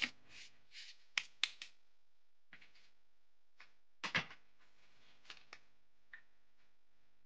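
Handling noises from hands working small tealight-style candles in metal cups and tools on a wooden surface: soft rustles, three quick light clicks a little over a second in, and a louder pair of knocks about four seconds in, then a few faint ticks. The cordless drill that comes into view is not running.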